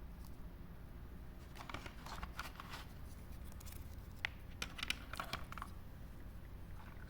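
Quiet clicks and scratches of small objects being handled, in two short clusters, over a low steady hum.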